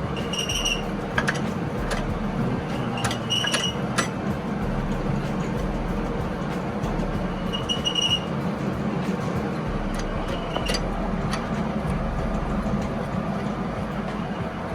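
Harrison lathe running steadily, a constant mechanical rumble and hum with a few short metallic pings over it.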